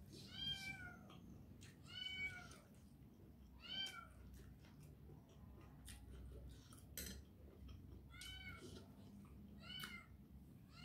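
A domestic cat meowing repeatedly: about five short, arched meows spread through, with a few faint clicks in between.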